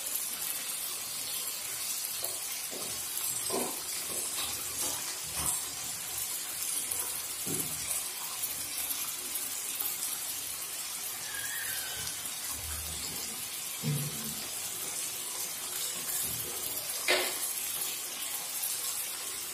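Chicken pieces frying in oil in a metal kadai: a steady sizzle with a few faint pops, the clearest near the end.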